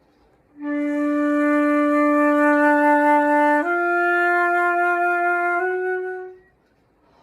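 Solo flute playing a slow phrase of three long held notes, each a step higher than the one before, the last one fading away.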